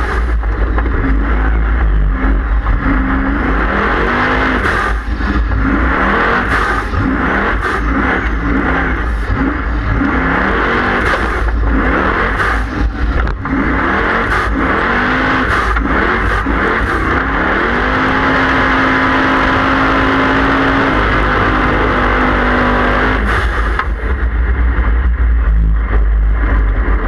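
Formula offroad buggy's racing engine heard from the onboard camera, revving hard with the pitch climbing and dropping again and again. About 18 s in, the revs hold steady for roughly five seconds before falling away. Sharp knocks and a heavy low rumble run throughout.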